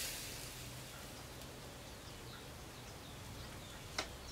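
Hiss of water on a smouldering sage smudge stick, dying away in the first half second. Faint bird chirps follow, then a single sharp knock near the end as the stick is stubbed into a bowl.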